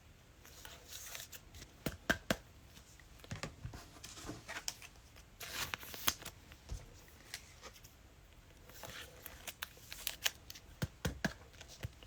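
Panini Mosaic football trading cards handled and flipped through one by one: soft sliding swishes of card against card with scattered light clicks.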